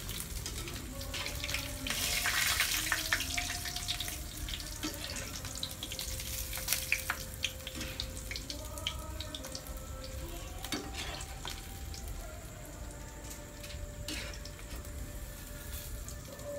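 Pork mesentery pieces (chicharon bulaklak) frying in hot oil in a wok with a steady sizzle. A spoon clicks and scrapes against the wok as pieces are lifted out, and it is loudest a couple of seconds in.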